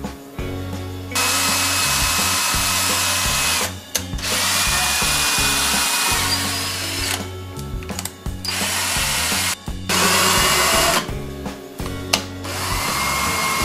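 A power drill running in about five short bursts, its motor whine holding steady within each burst and stopping abruptly between them.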